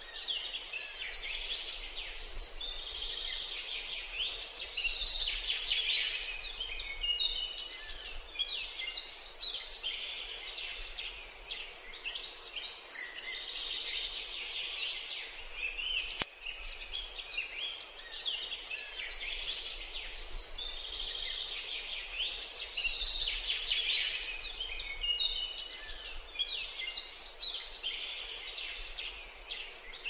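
Chestnut-tailed starling song: a continuous run of quick chattering and whistled notes, with a single sharp click about halfway through.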